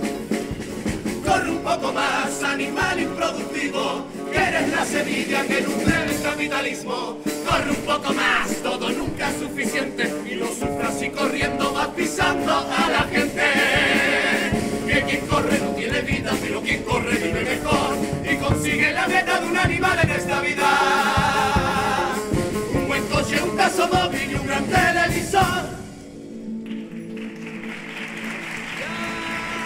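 Carnival comparsa choir of men singing a song in harmony with guitar accompaniment; the song breaks off about 26 seconds in and the sound drops much quieter.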